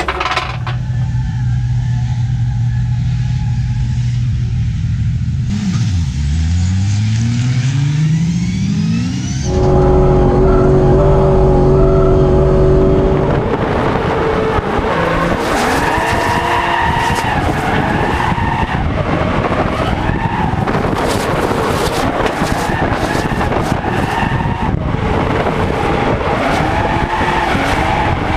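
A BMW E92 M3 drift car's engine runs steadily, then climbs in rising sweeps to high revs and holds there. From about 13 seconds in, the tyres squeal continuously as the car slides sideways in a drift, over the engine note.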